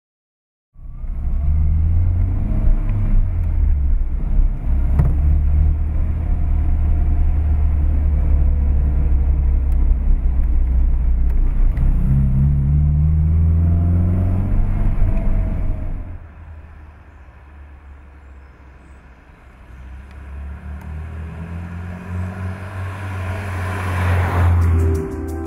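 1962 Volvo P1800's four-cylinder engine on a test drive, heard from inside the cabin, its note rising twice as it accelerates. About two thirds of the way through it drops sharply in level, then builds again until it cuts off just before the end.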